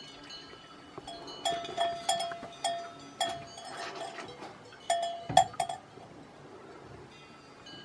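Cowbell on a cow's neck clanking as the cow moves its head: a string of about ten irregular ringing clanks from about a second and a half in to about six seconds in, the loudest near the end.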